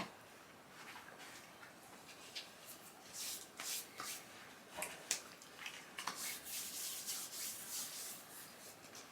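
Faint, intermittent rustling and rubbing of snack packaging being handled.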